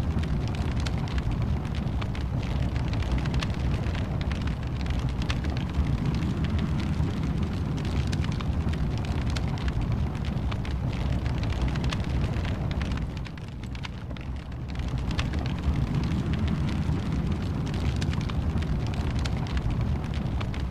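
Wood fire burning in a fireplace: a steady low roar of flames with frequent sharp crackles and pops, easing off for a second or two about two-thirds of the way through.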